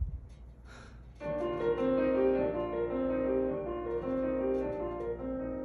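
Solo piano playing held, changing chords as the introduction to a musical-theatre song. It begins about a second in, after a brief near-quiet gap.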